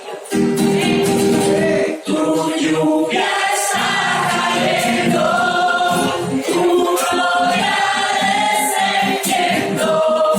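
Congregation singing a Spanish worship song with instrumental accompaniment, in sustained, held notes.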